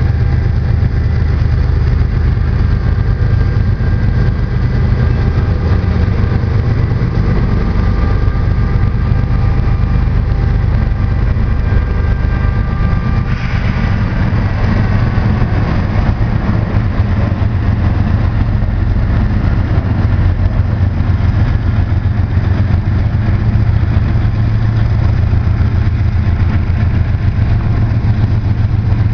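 Canadian Pacific GE diesel-electric locomotives working hard as they haul a heavy grain train out of the yard: a loud, deep, steady engine drone with a high whine over it. About halfway through, the whine gives way to a brief rush of noise as the second unit comes by.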